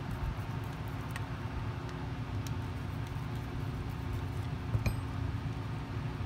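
Screws being backed out of a vacuum cleaner's plastic switch housing with a hand screwdriver: a few faint clicks, and one sharper clink a little before five seconds in, over a steady low hum.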